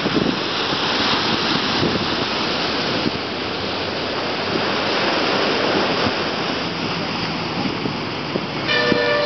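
Sea surf breaking and washing over rocks and sand below a seawall, a steady rush of noise. Near the end a horn starts sounding, one held tone.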